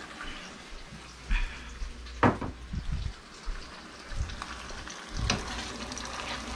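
Mushrooms and thick cream sauce sizzling in a hot frying pan, with a few knocks and clinks of a jar and spoon, the loudest about two seconds in. Stirring in the pan near the end.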